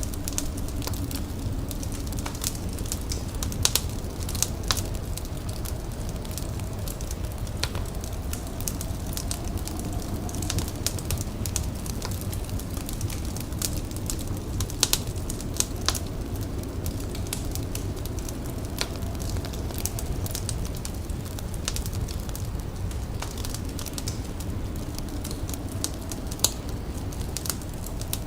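A fire crackling, with irregular sharp pops over a steady low rumble, and a faint wavering tone in the background.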